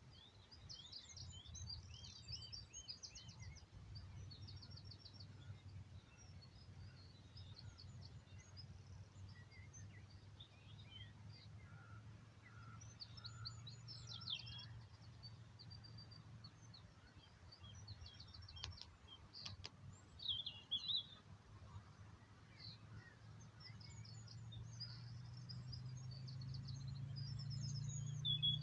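Small birds singing and chirping, with short trills and repeated notes, over a steady low rumble that grows louder toward the end.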